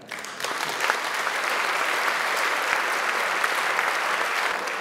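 Audience applauding: many hands clapping at once, building up over the first second, holding steady, then easing off near the end.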